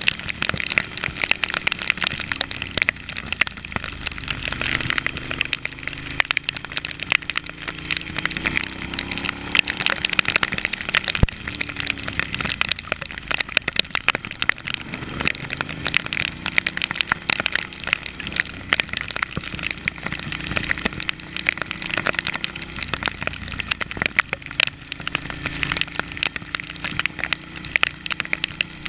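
Raindrops striking the camera housing in a dense, rapid clicking, with the Ducati Hypermotard's V-twin engine running faintly underneath, its pitch rising and falling with the throttle through the bends.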